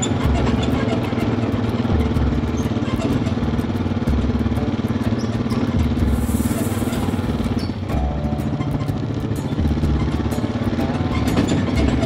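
A small petrol engine running steadily at high speed.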